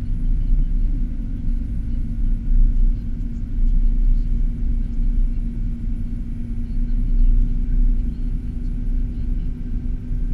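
Steady low rumble of a car driving on a snow-covered road, heard from inside the cabin: engine and tyre noise with a constant low hum and no distinct events.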